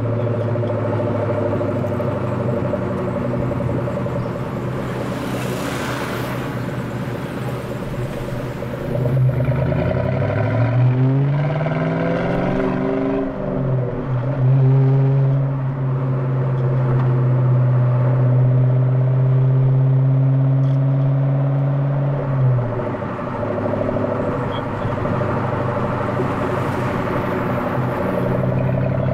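1997 SVT Cobra Mustang's 4.6-litre DOHC V8 running through an off-road X-pipe and Flowmaster 40 Series mufflers in city driving. The engine holds steady at low revs, rises in pitch under acceleration about a third of the way through, falls back briefly, holds a steady cruise, then drops as the throttle comes off.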